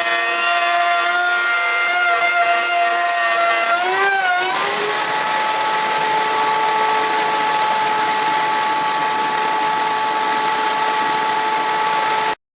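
Router motor running at a steady whine. Its pitch wavers and settles to a new steady tone about four seconds in, then the sound cuts off abruptly near the end.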